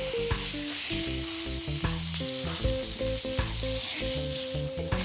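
Hot oil sizzling in a frying pan where snapper fillets have been seared, with metal tongs moving in the pan, over background music with a simple melody.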